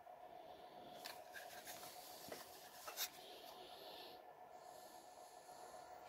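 Near silence: faint rubbing and a few light scratchy ticks as a plastic switch-panel enclosure is handled, over a low steady hum.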